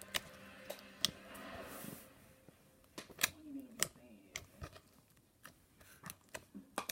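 Slime being squished and played with by hand, giving sharp pops and clicks at irregular intervals, with a short hissing stretch about a second in.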